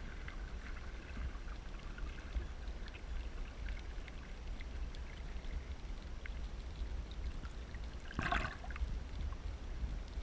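Water sounds over a steady low rumble, with faint scattered ticks and one short splash of water about eight seconds in.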